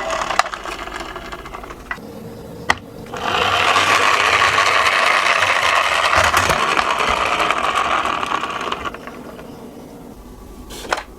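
A toy minicar rolling down a slope: a few light clicks, then a steady rattle of small wheels on the track for about six seconds, dying away near the end.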